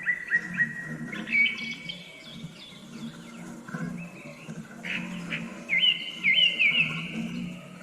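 Several wild birds chirping and singing: quick repeated chirps and short trills, busiest about five to seven seconds in, over a low steady hum.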